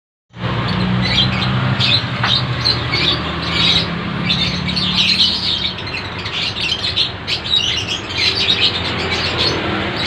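Several caged lovebirds chattering, a dense run of rapid, high chirps and squeaks. A low steady hum lies underneath for the first half.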